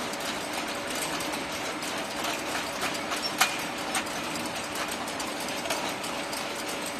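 Chain conveyor of an oil filling line running with a steady hum, square metal oil tins clicking and rattling along it, with a sharper clank about three and a half seconds in.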